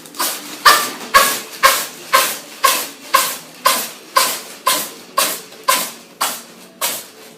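A pet sneezing over and over in a rapid fit, about two sharp sneezes a second, each one fading quickly.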